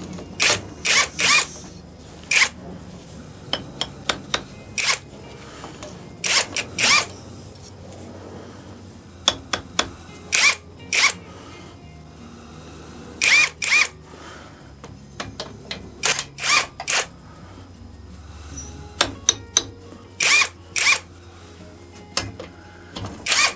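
Handheld cordless drill with a socket spinning cylinder-head nuts off a 1965 VW 1200 40 hp air-cooled engine, in many short trigger bursts of well under a second each, grouped in clusters with pauses between.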